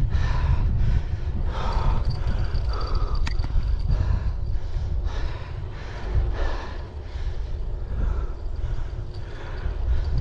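Wind buffeting the microphone while riding a bicycle, with the rider breathing hard in a rhythm of short puffs.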